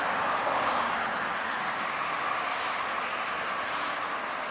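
Jet engines of a twin-engine Airbus A320-family airliner at takeoff power as it lifts off: a steady, broad roar that slowly fades.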